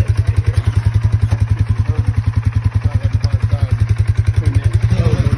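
Engine running under load with a strong, even, rapid low pulse, putting tension on the tow rope to drag a sunken boat. It gets a little louder near the end.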